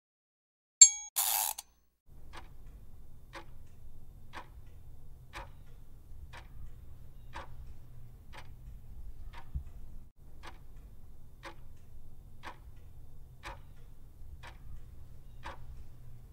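Quiz countdown-timer sound effect: a bell-like ding and a short whoosh about a second in, then a clock ticking about once a second over a low hum as the timer runs down.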